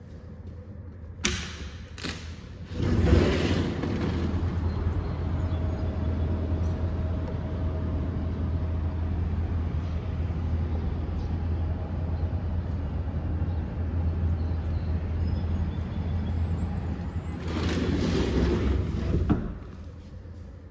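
A balcony sliding door clicks and rolls open, then a steady rush of outdoor air and city street traffic with a strong low rumble of wind on the microphone, which cuts off when the door slides shut near the end.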